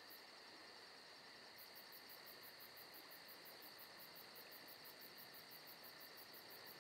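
Near silence: faint background hiss with a thin steady high whine and a faint, very high ticking about four or five times a second.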